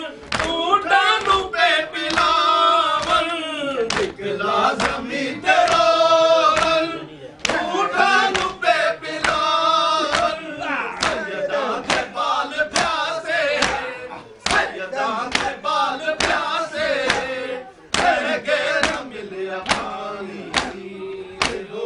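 Men chanting a Punjabi noha together in mourning, with a steady beat of sharp hand slaps a little under two a second, the matam (chest-beating) that keeps time with the recitation.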